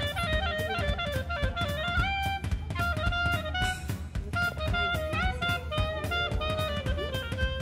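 Background music: a plucked, guitar-like melody of quick stepping notes over a drum kit keeping a steady beat.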